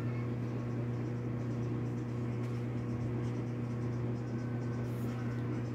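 A machine's steady low hum, even throughout.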